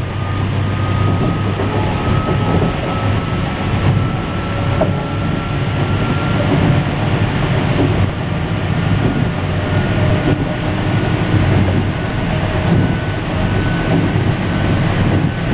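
Running noise heard inside a Meitetsu 7000 series Panorama Car train: a steady low rumble and rushing noise from the moving car, with a thin whine that climbs slowly in pitch across the stretch.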